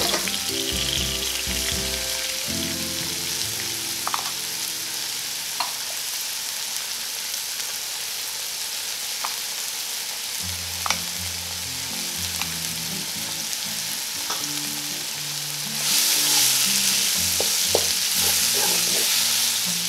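Chopped kimchi, scallion and mushroom sizzling in hot oil in a wok, with occasional taps of a wooden spatula. The sizzle gets louder about four seconds before the end as the mix is stirred. Soft background music plays underneath.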